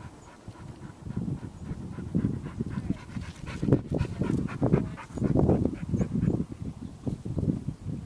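A dog panting close to the microphone: quick, uneven puffs of breath, several a second, getting louder in the middle.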